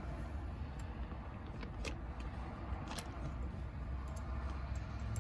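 A few sharp, scattered clicks and clinks of small metal hardware and hand tools while a steering hub is being fitted, over a steady low rumble.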